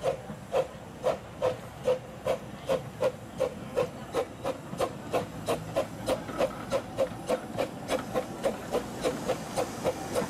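Exhaust beats of the Tazzelwurm, a small park-railway steam locomotive, pulling away under steam: sharp chuffs with a steady hiss of steam. The beats quicken from about two a second to about three a second as it gathers speed.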